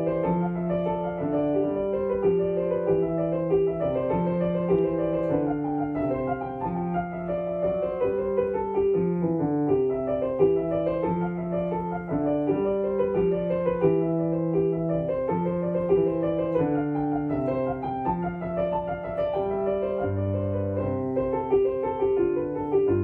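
Grand piano played continuously: held bass notes changing every second or two under a moving upper line, with a deeper bass note coming in near the end.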